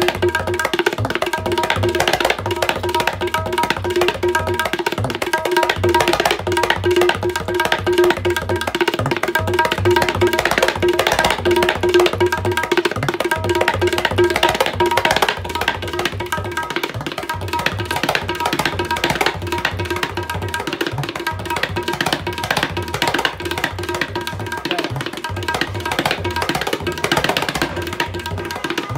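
Tabla pair with reverse-applied syahi, played in a fast, dense qaida: rapid finger strokes on the wooden treble drum ring at a steady pitch, over deep bass strokes from the metal bass drum.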